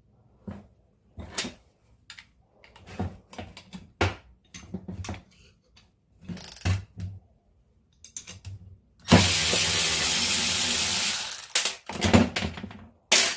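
A run of sharp clicks, clanks and knocks as tools and metal parts are handled, then a power tool runs loudly and steadily for about two and a half seconds, with more knocks after it stops.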